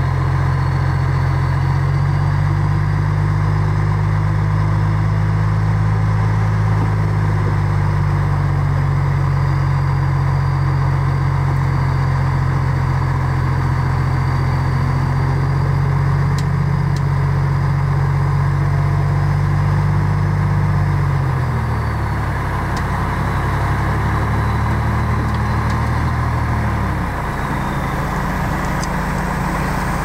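Heavy construction machine's diesel engine running steadily under throttle, with a faint high whine over it; the engine note drops about two-thirds of the way through and drops again a few seconds later as the throttle eases off.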